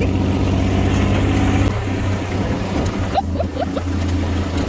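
Off-road vehicle engine running steadily while riding; its note thins and drops slightly about two seconds in. A few brief high squeaks come a little past the middle.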